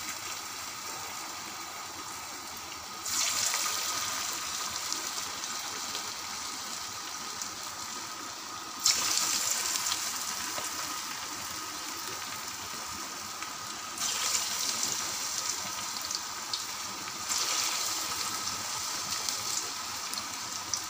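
Balls of grated bottle gourd and besan batter deep-frying in hot oil in a kadhai, a steady sizzle. It jumps louder suddenly about three, nine, fourteen and seventeen seconds in, as more balls are slipped into the oil.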